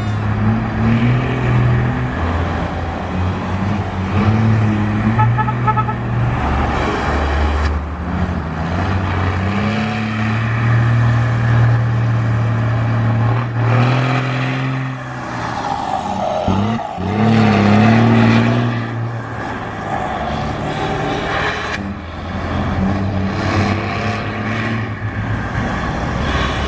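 Volkswagen 24.250 truck's diesel engine running and on the engine brake, its rumbling note rising and falling in pitch several times.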